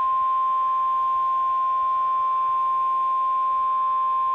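NOAA Weather Radio 1050 Hz warning alarm tone: a single steady, unbroken high-pitched tone held at a constant level. It signals that a warning message is about to be read.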